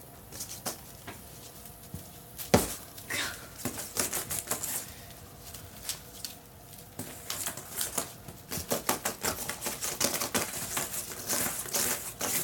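Cat scrabbling and batting about on a hard surface: quick, irregular clicks and taps, with one sharp knock about two and a half seconds in and busier tapping in the second half.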